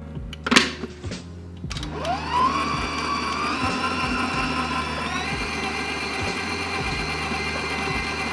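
A sharp knock about half a second in, then a stand mixer's motor starting up with a quickly rising whine and running steadily, its flat beater churning flour into cookie dough. The pitch steps up slightly around five seconds in as the speed is raised.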